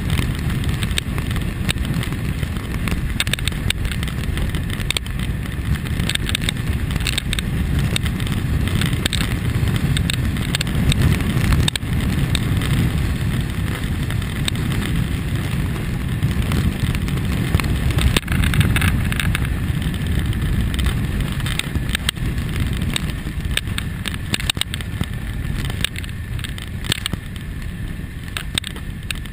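Kawasaki ZX-6R sport bike on the move: a steady low rumble of wind buffeting the microphone mixed with the inline-four engine and road noise. It gets quieter near the end.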